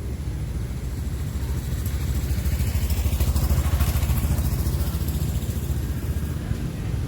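An engine running with a low, rapid pulsing, swelling about halfway through and then easing off again.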